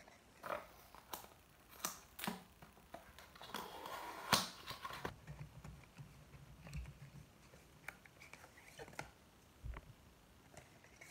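A cardboard box being opened by hand, its flap pulled open and a paper insert handled: a series of sharp crackles and clicks, with a longer rustle about four seconds in.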